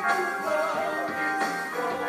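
Live gospel music: a choir of backing singers singing with the band, with percussion strokes in the accompaniment.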